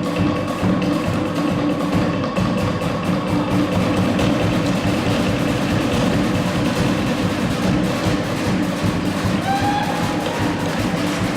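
Background music with percussion.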